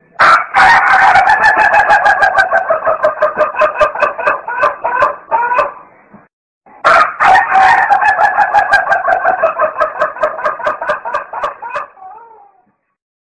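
Chicken calling in two long stretches of about six seconds each, a pause between them, with a rapid ticking of about four or five a second running through both.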